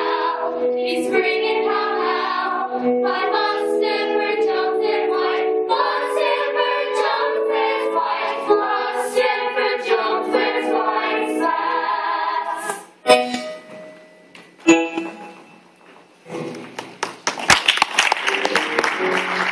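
Stage cast singing the closing bars of a musical number with accompaniment. The music stops about 12 seconds in, two sharp knocks follow in a brief lull, and an audience breaks into applause from about 16 seconds.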